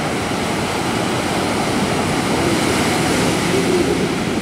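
Ocean surf breaking on the beach: a steady, loud rushing wash of waves, swelling slightly about three seconds in.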